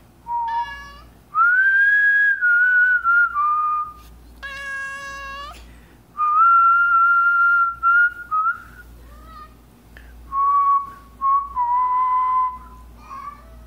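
A person whistling long, held notes, with a cat meowing back between them: a short meow near the start and a longer one about four and a half seconds in.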